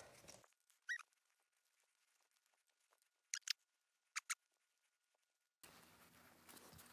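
Faint sounds of a hex key backing a set screw out of a grinder's lead screw nut: a brief squeak about a second in, then two pairs of small sharp metal clicks a little under a second apart, otherwise near silence.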